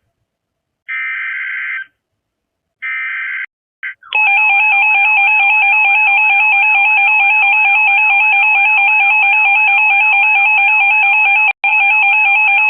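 Emergency Alert System header tones: two short bursts of buzzing data, about a second apart, then from about four seconds in the loud, steady EAS attention signal, which drops out for a moment near the end. It is heralding a National Weather Service tornado warning.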